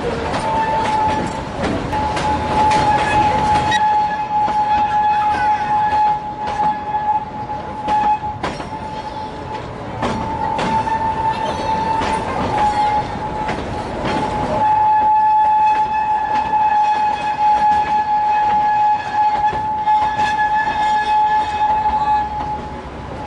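Small children's railway train rolling along the track, heard from an open carriage, with the clatter of the wheels. A steady high-pitched squeal holds for most of the time and breaks off briefly a few times.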